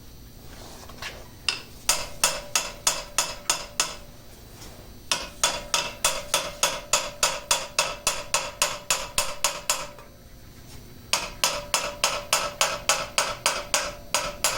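Hammer blows on metal, each ringing, in three quick runs of about three to four strikes a second, as someone tries to free the engine's cooling fan.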